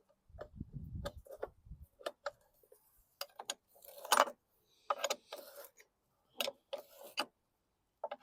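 Stahlwille 9/16 open-end wrench clinking against a steel nut in irregular metallic ticks as it is taken off and refitted again and again. This is the sound of a lawn mower wheel's retaining nut being run down onto its bolt.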